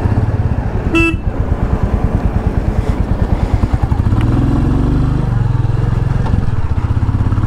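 Royal Enfield Classic 350's single-cylinder engine thumping as the motorcycle pulls away, its note rising as it gathers speed from about four seconds in. A short horn beep sounds about a second in.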